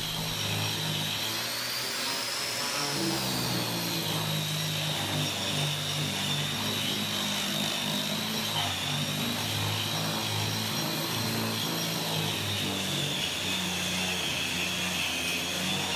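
Porter-Cable 4-1/2-inch angle grinder with a diamond cup grinding wheel running steadily as it grinds thinset mortar off an OSB subfloor, with a Craftsman shop vac drawing dust through the grinder's shroud. A high whine wavers slightly in pitch as the wheel is worked over the floor.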